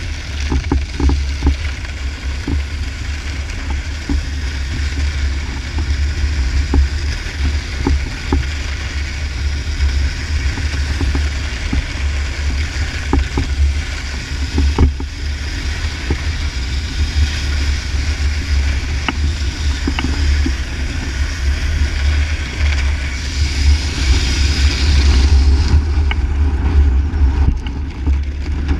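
Wind buffeting the camera microphone in a steady low rumble, over the hiss and scrape of a snowboard sliding across ice, with scattered sharp clicks. The hiss grows louder about four-fifths of the way through, as the board turns.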